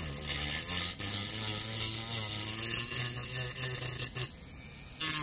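WEN 2305 rotary tool running with a sanding drum grinding excess PLA off the edge of a 3D-printed part: a steady motor hum under a gritty scraping hiss. The grinding eases for a moment a little past four seconds in, then picks up again.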